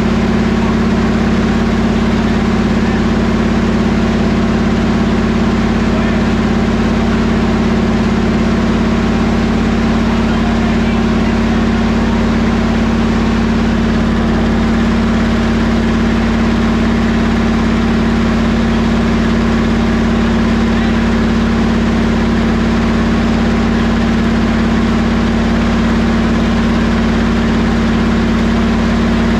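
A freshly built Buick 455 Stage 1 V8 runs at a steady, unchanging speed during its first-start camshaft break-in.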